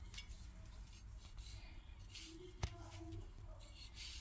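Plastic wrapping crinkling and rustling as a knife cuts it and hands pull it off a raw joint of meat, with one sharp click about two and a half seconds in, over a low steady hum.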